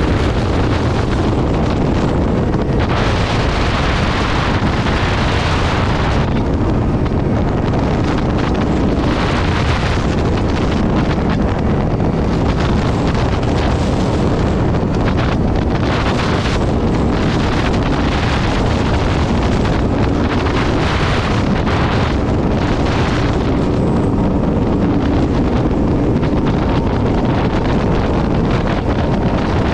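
Heavy wind buffeting on a motorcycle rider's camera microphone at highway speed: a loud, steady rush that gusts brighter every few seconds. The bike's engine drones steadily underneath.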